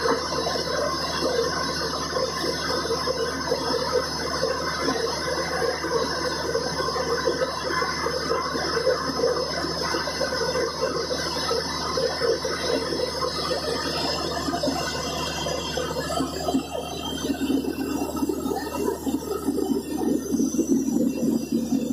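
Horizontal directional drilling rig running, a steady, loud machine noise with a rushing hiss. About three-quarters of the way through the sound changes and shifts lower.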